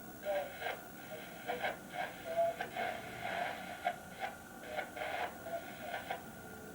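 Faint radio audio, small wavering sounds and scattered short clicks, over a steady high-pitched whine.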